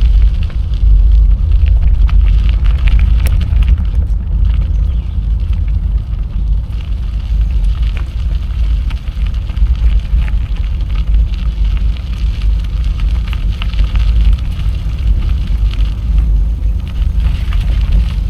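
Wind buffeting the microphone of a camera on a moving bicycle, a loud steady low rumble, with faint scattered ticks and crackles of the ride over the path.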